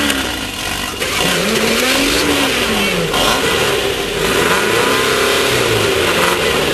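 Class 1600 off-road race car's air-cooled Volkswagen 1600 engine revving. Its pitch rises and falls about a second in, then it runs hard at steady high revs.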